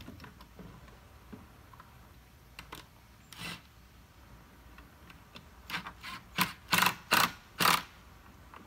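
Cordless Ryobi driver with a socket running in short bursts, driving hex-head screws through a metal gate hinge into the wooden post. One brief burst a few seconds in, then about six quick bursts close together near the end, with a few light clicks of the hinge being handled before them.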